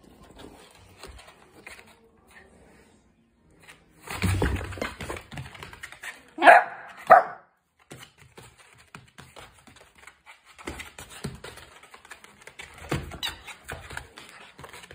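Miniature dachshund playing rough with a plush toy: scuffling and rustling, then two short loud barks about halfway through, followed by scattered light knocks and scrabbling as it jumps about.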